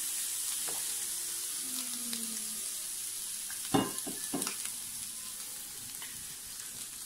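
Pork ribs sizzling on a hot electric grill plate, a steady high hiss. A little past halfway comes one sharp knock, followed by a few small clicks.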